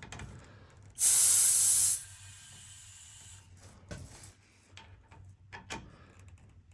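Compressed air hissing through an air chuck into an Air Lift 5000 airbag's inflation valve, a loud burst of about a second, followed by a fainter hiss and a few small clicks as the bag is aired up to pressure.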